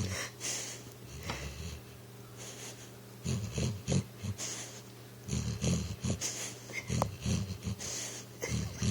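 A sleeping pit bull snoring and puffing while he dreams: runs of short, quick breaths that come every second or two.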